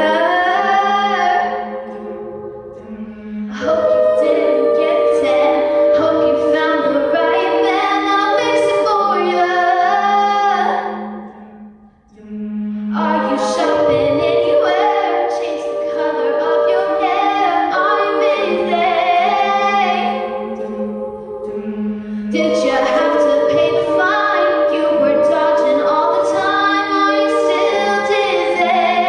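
A cappella vocal ensemble singing in close harmony, in long phrases with a short break about three seconds in and a near-silent gap about twelve seconds in.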